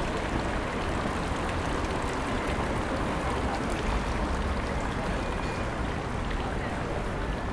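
Steady city street ambience: an even hiss with a constant low rumble of traffic, with no single sound standing out.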